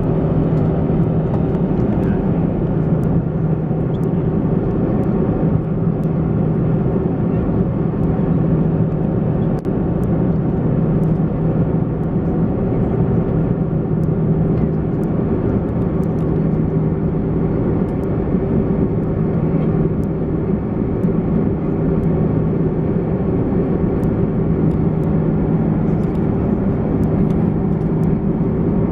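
Airbus A330 cabin noise in the climb, its Rolls-Royce Trent 700 turbofans heard from a seat by the wing as a steady drone with two low hums at a constant pitch.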